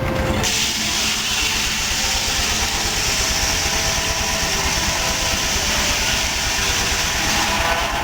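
Belt-driven sawmill powered by a steam tractor, running steadily: a fast low pulsing under a loud broad hiss.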